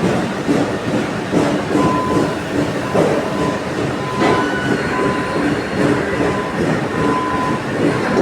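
Heavy machinery running loudly, with irregular metallic clanks and thin intermittent squeals of metal on metal.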